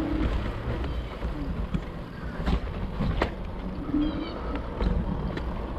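Low, steady rumble of wind on the microphone and rolling noise as an e-bike sets off, with a few sharp clicks and short high bird chirps about four seconds in.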